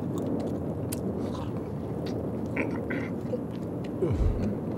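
A person eating: a plastic fork picking at food, with chewing and small crunching clicks, over a steady low rumble of traffic. About four seconds in, a louder low sound slides down in pitch.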